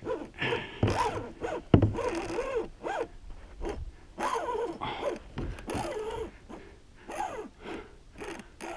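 Fishing reel's drag letting out line in repeated zipping bursts that rise and fall in pitch, as a hooked roosterfish pulls against it.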